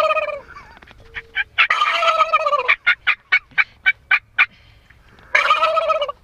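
Turkey gobbling: three loud gobbles, each under a second and falling in pitch, with a fast run of short sharp notes between the second and third.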